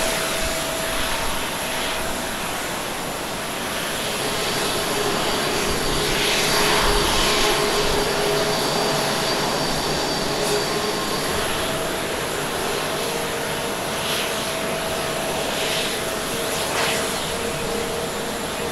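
Boeing 787-9 airliner's jet engines at idle thrust during pushback and taxi: a steady rush of jet noise with faint held whining tones, swelling slightly partway through.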